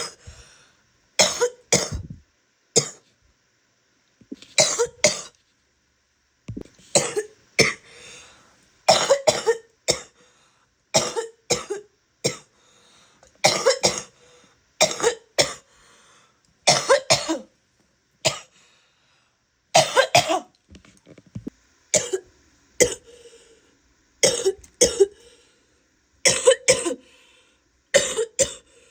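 A woman coughing wet, chesty coughs in short fits of two or three, over and over, with brief pauses between fits.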